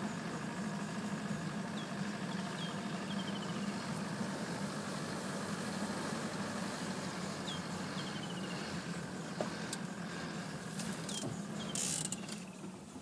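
Open safari vehicle's engine running steadily as it drives through grass, dying away near the end. Short bird chirps come and go, and a few sharp knocks sound shortly before the engine fades.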